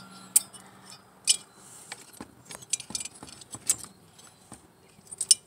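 Light, irregular metallic clicks and clinks of small screws and chainsaw parts being handled by hand while the ignition coil is unscrewed from a Stihl MS 170's engine, with a few sharper knocks of plastic housing against metal.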